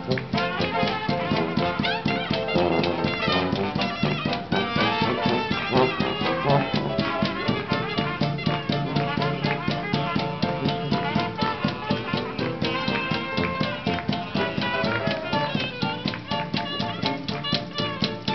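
Traditional New Orleans jazz street band playing an uptempo tune with a steady beat: trumpet, clarinet and trombone over tuba, keys and percussion.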